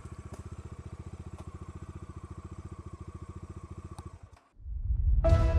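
Bajaj Dominar 350's single-cylinder engine idling with an even, rapid exhaust beat. It cuts off suddenly about four seconds in, and music starts just before the end.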